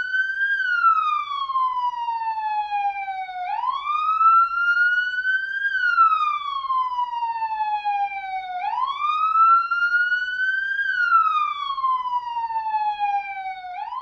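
Police siren in its wail pattern: the pitch climbs for about two seconds, then sinks slowly for about three, over and over, with a new rise starting about every five seconds.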